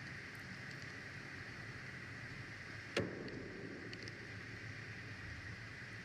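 A single sudden loud bang about three seconds in, with a brief echo trailing off, over a steady background hiss.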